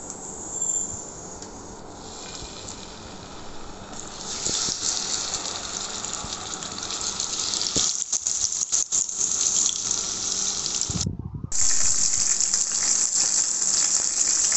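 Spice-marinated mackerel frying in oil in a nonstick pan, a steady hissing sizzle. It starts about four seconds in and grows louder, with a brief break near the end.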